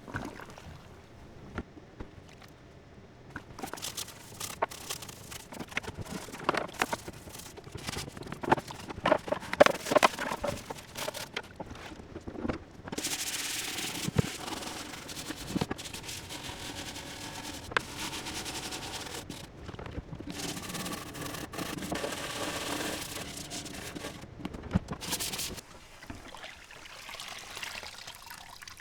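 Computer case parts being scrubbed in a soapy wash: irregular rubbing strokes with scattered knocks and clicks.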